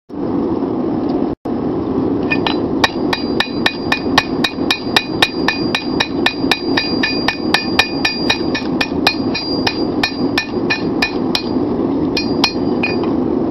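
Hand hammer striking a red-hot bar of 5160 steel on an anvil, drawing the bar out to length and width. The blows come at a steady pace of about three a second, each with a ringing tone, and thin out near the end. A steady rushing noise runs underneath.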